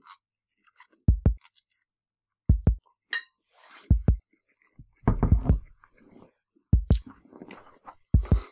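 A slow heartbeat sound effect, paired low thumps about every one and a half seconds, over quieter chewing of noodles.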